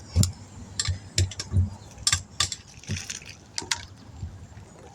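A string of about ten irregular knocks and clicks from hands and tools working at a tire and wheel rim while a new valve stem is being fitted.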